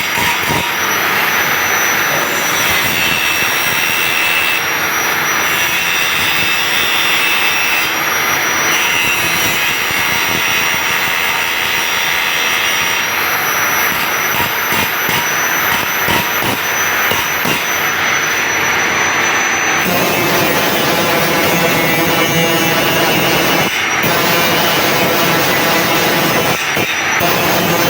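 Band saw blade sharpening machine running, its grinding wheel working the blade's teeth: a loud, steady grinding hiss with a thin high whine over it. The sound changes character about two-thirds of the way through.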